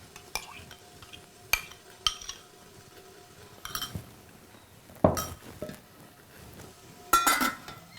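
Metal kitchen vessels and utensils clinking and clattering: a few light clicks, then louder clatters about five and seven seconds in, the last with a short metallic ring.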